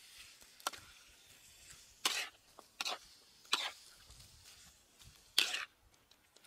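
Metal spatula stirring and scraping frog pieces coated in wet spice paste around a steel wok, in five short, separate scrapes. The loudest comes about five and a half seconds in.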